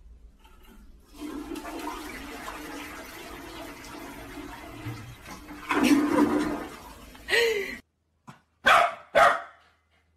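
Toilet flushing, a steady rush of water lasting about six seconds and swelling near the end. After it cuts off, a small dog barks twice in quick succession.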